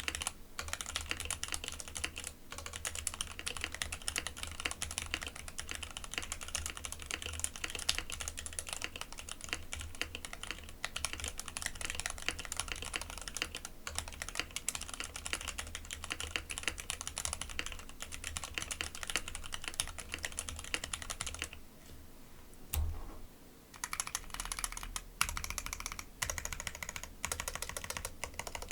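Fast, continuous typing on a Monstargear X0 K80 aluminium mechanical keyboard: stock JWK Lilac linear switches in an aluminium plate, sandwich-mounted with no dampening, under doubleshot PBT keycaps. The typing stops briefly about 22 seconds in, then resumes on the modifier keys.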